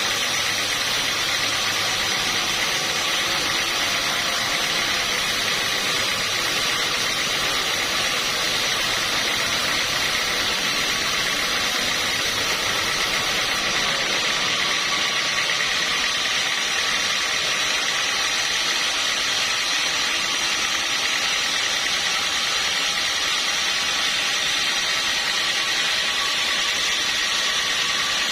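Sawmill machinery running steadily: a continuous mechanical hiss with a few steady high whines, without change.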